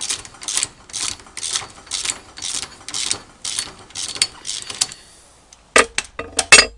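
Ratchet wrench clicking in steady strokes, about two a second, undoing the 17 mm nuts that hold a rear axle shaft. It stops about five seconds in, and a few sharp metallic knocks follow near the end.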